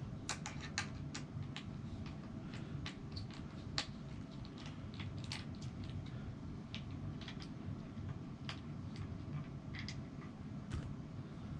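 Irregular light clicks and taps from handling the kayak seat's frame, bolts and screwdriver, over a steady low background hum.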